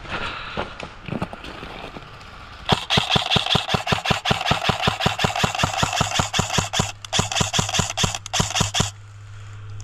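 Airsoft electric gun firing full-auto: a rapid even rattle of about ten shots a second with the gearbox motor whining, starting nearly three seconds in, breaking briefly around seven seconds and stopping near nine seconds.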